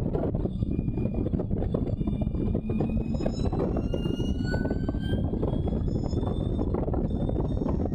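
Allard J2 racing car's V8 engine pulling hard under acceleration, its pitch rising over several seconds, under heavy wind buffeting on the open cockpit's microphone.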